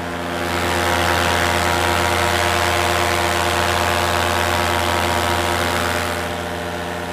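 Paramotor engine and propeller running steadily in flight at an even pitch, louder about a second in and easing off near the end.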